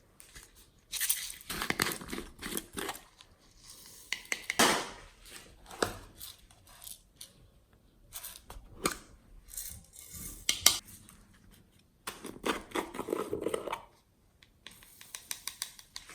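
Glossy slime being squished and stretched by hand, giving irregular sticky clicks and crackles in several bursts with short pauses between them.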